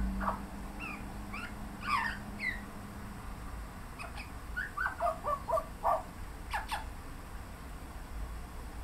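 Australian magpie singing: short warbled notes and quick sliding chirps in scattered phrases with pauses between, busiest about two seconds in and again from about five to seven seconds in.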